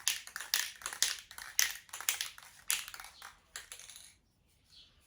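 Aerosol spray paint can being shaken, its mixing ball rattling in sharp clacks about three times a second, stopping about four seconds in.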